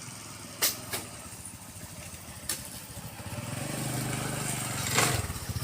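Small vehicle engine running and growing louder from about three seconds in, with a few sharp clicks or knocks before it.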